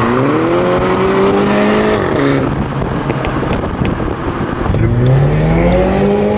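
2016 Mini Cooper S with an Armytrix valvetronic performance exhaust accelerating hard: its turbocharged 2.0-litre four-cylinder climbs in pitch, drops sharply at a gear change about two seconds in, and climbs again through the last second and a half, over steady road noise.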